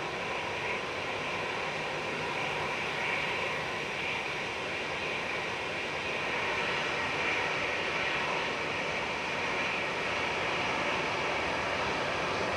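Airliner engines running: a steady rushing noise, strongest in the upper-middle range, that grows slightly louder about halfway through.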